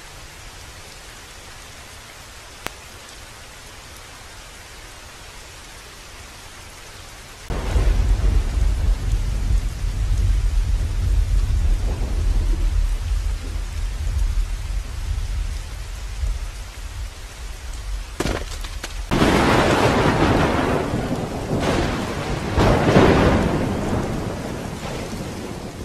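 Rain falling steadily. About seven and a half seconds in, a heavy, low rumble of thunder starts suddenly and carries on, and a second loud thunderclap comes in about nineteen seconds in before fading out.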